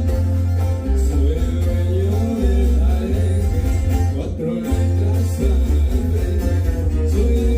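Band music with a voice singing over plucked guitar and a heavy, pulsing bass.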